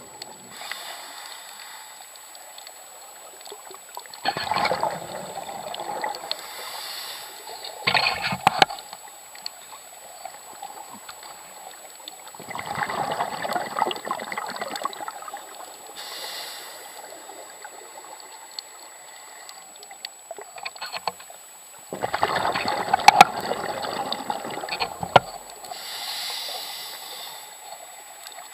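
Water sloshing and gurgling around the camera, with a steady wash broken by several louder rushes of bubbling water a few seconds apart.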